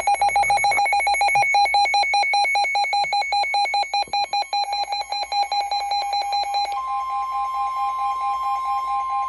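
Weather radio receiver's alarm beeping rapidly, a buzzer-like tone. About seven seconds in, the steady NOAA Weather Radio warning alarm tone joins it, signalling that a warning is about to be read.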